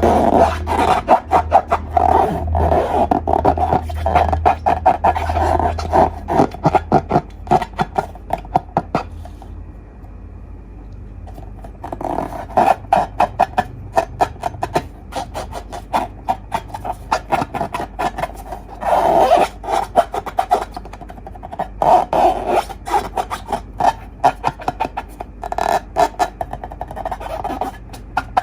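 Slime being squished and kneaded by hand, giving rapid sticky clicks and pops in bursts, with a short lull about ten seconds in.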